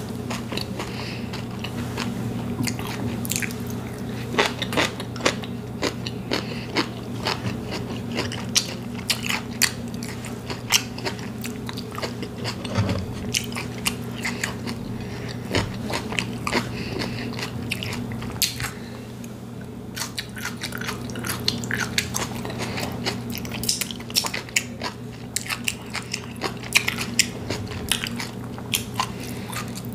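Close-miked eating: chewing with many sharp, crisp crunches and mouth clicks from bites of potato chips and a sub sandwich, over a faint steady low hum.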